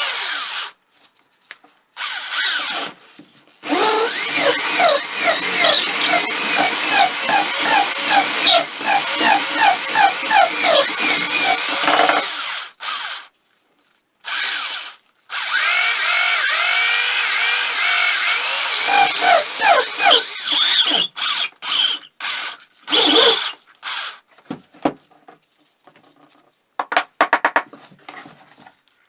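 Handheld power tool running in loud bursts, its pitch wavering as it bears on the work, with short gaps between passes and choppier short bursts near the end.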